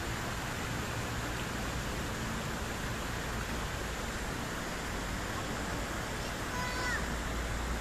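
Steady rushing background noise of the open-air surroundings, with a short high-pitched call near the end.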